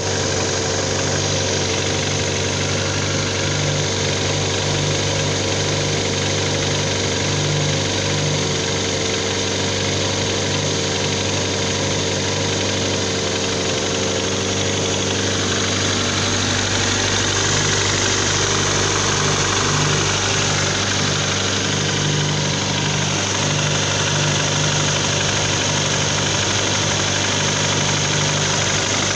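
Engine idling steadily with a ticking rattle, a sound taken as the sign that the engine needs an overhaul; the owner suspects the valves, most likely a burnt one on cylinder 4.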